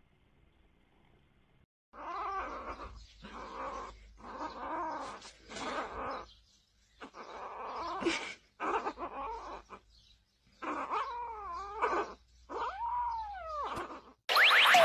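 Kitten yowling with a slice of sausage held in its mouth: a run of drawn-out, wavering calls, each about a second long, the kind of possessive yowl a kitten makes guarding food. Near the end a loud sound effect with a falling sweep cuts in.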